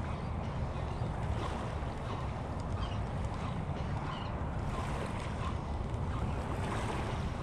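Steady low rumble of wind on the microphone, with small waves washing along the shore.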